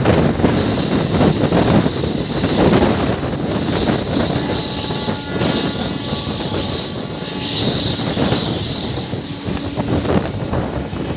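Passenger train passing close at speed: a steady rumble of wheels on rail with rapid clatter over the joints, and a high-pitched wheel-on-rail screech from about four seconds in.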